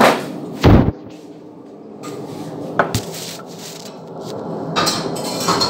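A few knocks and bumps over a steady low hum. A sharp knock comes right at the start, followed by a heavy thump a little under a second in, two clicks about three seconds in, and rustling clatter near the end.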